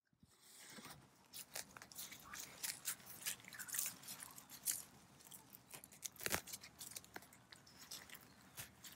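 Gloved hands digging through bark-chip mulch and potting soil in a pot, with irregular crunching and crackling of the bark chips and a sharper crack a little past the middle.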